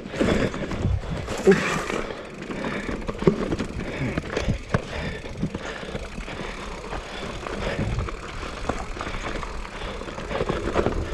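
Mountain bike descending a rough dirt trail: tyres running over dirt and stones, with the bike rattling and knocking over bumps, a few knocks louder than the rest.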